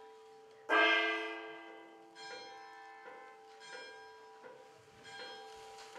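Altar bell rung at the elevation of the chalice during the consecration: a loud ringing strike about a second in, then softer strikes about every second and a half, the ringing carrying on between them.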